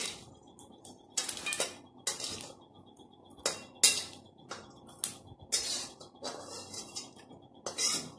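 Metal spatula stirring and scraping in a metal pan, with irregular clinks and scrapes every half second to a second, while whole spices (mace) roast in a little oil.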